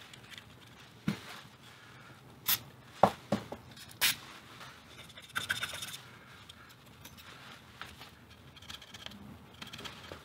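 Workbench handling sounds from a small transistor radio chassis: a handful of light clicks and knocks in the first four seconds, then a cotton swab scrubbing and scratching over the battery compartment.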